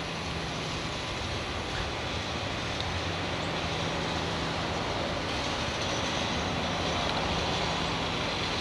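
Steady rumble with a faint low hum, slowly getting louder: a motor vehicle running nearby.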